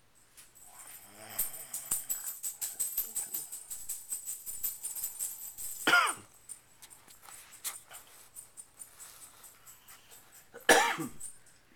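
Several seconds of quick metallic jingling and rattling, then two loud snores about five seconds apart, each a harsh sound falling in pitch.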